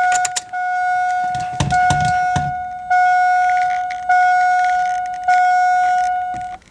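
Cadillac Escalade's dashboard warning chime sounding with the ignition key at run and the engine off: one steady tone struck about five times, roughly once every 1.2 seconds, stopping near the end. Clicks at the start and a few dull thumps a couple of seconds in.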